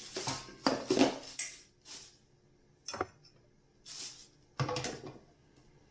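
Parts of a stainless-steel electric juicer being handled and taken apart: a series of metal and plastic clatters and knocks, with a sharp click about three seconds in and a last clatter near the end.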